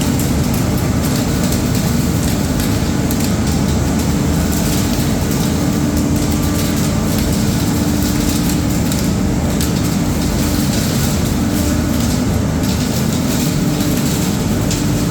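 Olive mill machinery running with a steady drone and a constant low hum.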